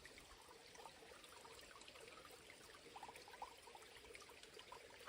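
Near silence with a faint trickling stream and a few soft ticks.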